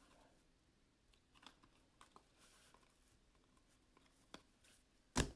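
Faint clicks and ticks of glossy Donruss Optic trading cards being handled, slid and flicked against each other as a stack is flipped through, with a brief louder knock near the end.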